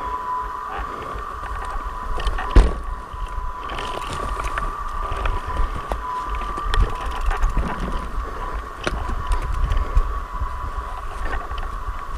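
Low rumble of wind and handling on an action camera's microphone, with a thin steady high whine and a few sharp knocks, the loudest about two and a half seconds in.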